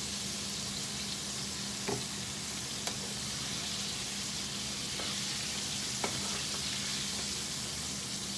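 Flour-coated chicken pieces frying in hot oil in a frying pan: a steady sizzle, with a few faint clicks.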